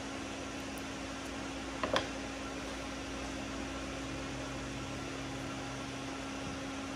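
Steady hum and whoosh of an ice maker and a ceiling fan running, with two quick snips of scissors about two seconds in.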